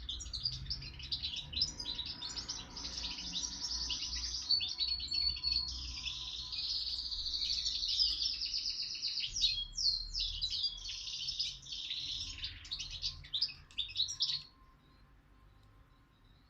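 A young songbird singing a long, fast run of chirps and trills, which stops suddenly about two seconds before the end.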